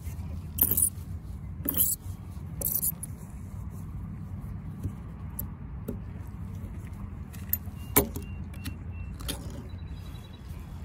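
Old-design hand-held can opener biting and levering its way around the rim of a small tin can: sharp metallic clicks about once a second for the first three seconds, then a few scattered clicks, the loudest near eight seconds. A steady low wind rumble on the microphone runs underneath.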